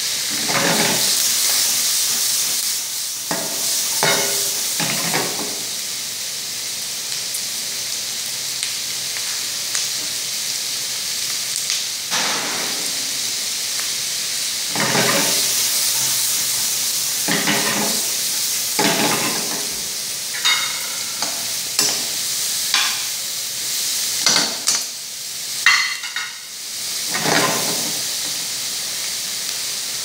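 Beef cubes, onion and carrot sizzling steadily in a wok over a gas flame, with repeated louder surges and scraping as the food is stirred and tossed, coming more often in the second half.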